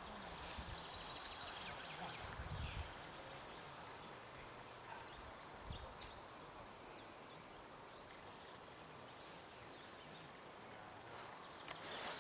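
Quiet outdoor meadow ambience: a faint steady hiss with a few faint bird chirps, a brief low rumble about two seconds in and a soft thump near the middle.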